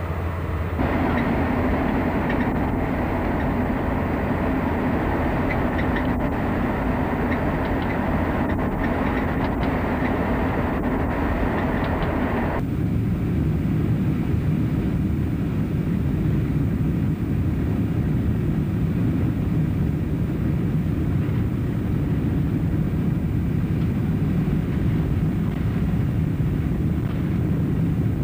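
Steady roar of a jet airliner climbing out, heard from the ground. About twelve and a half seconds in it cuts abruptly to the low, steady rumble inside a jet airliner's cabin as it rolls along the ground.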